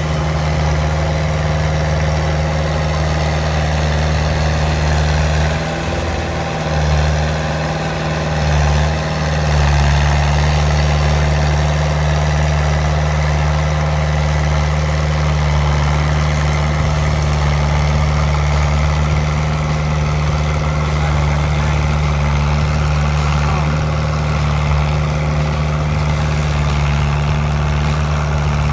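Fiat 80-66DT tractor's diesel engine running steadily while ploughing a paddy field. The engine note wavers and dips briefly about six to nine seconds in.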